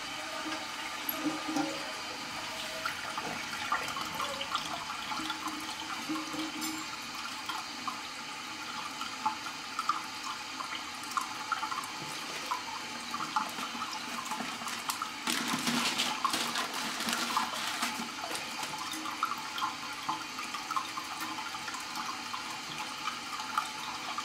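Water running and trickling in a toilet after a flush, a steady rush with small spattering drips, growing louder for a few seconds past the middle.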